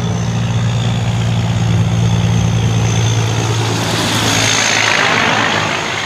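Semi-truck's diesel engine running steadily as the truck drives past, with a rush of tyre and air noise swelling as the trailer goes by close, about four to five seconds in. The engine note then fades a little.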